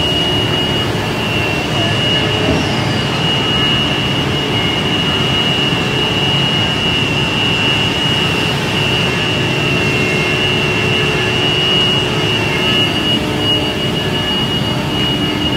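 Woodworking machinery running around a Cytek CX-8 CNC panel saw: a steady, loud drone with a constant high whine over it.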